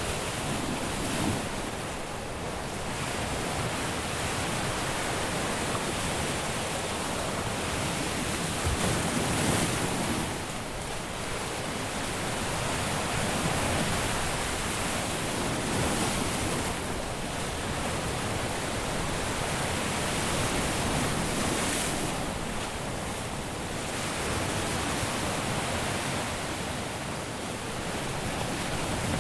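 Caribbean surf breaking on a beach: a continuous wash of waves that swells every few seconds as each one breaks, with some wind on the microphone.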